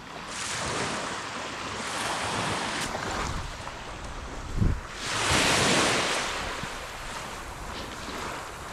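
Small waves breaking and washing up on a sand-and-pebble shore, with wind on the microphone. A low thump about four and a half seconds in is followed by a louder surge of wash.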